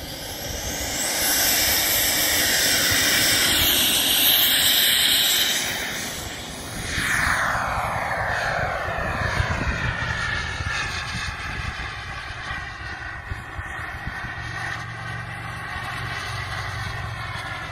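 XiCoy 45 turbine of a Sebart Mini Avanti model jet running loud at high power for the takeoff, with a high-pitched turbine whine. About seven seconds in it passes with a falling pitch, then settles to a quieter, steadier drone as the jet climbs away.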